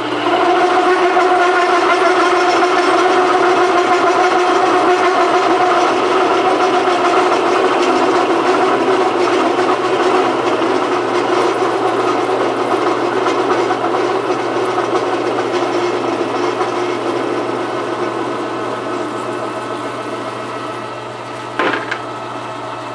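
Metal lathe parting off a spinning steel bar with a cut-off blade at a raised feed rate: the cut sings with a steady, resonant ringing tone over the lathe motor's hum. This is the chuck-and-bar resonance the machinist is trying to feed through. The ringing eases off gradually, and there is a brief sharp click near the end.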